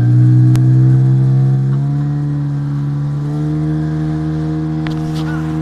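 Small fishing boat's engine throttled up and running loud and steady under way, its pitch climbing a little about two seconds in.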